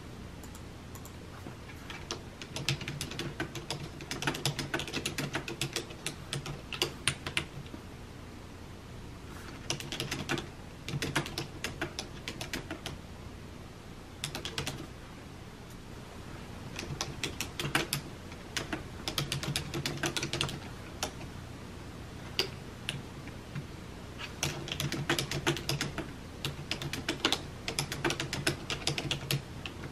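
Typing on a low-profile computer keyboard: rapid key clicks in spurts of a few seconds, broken by short pauses.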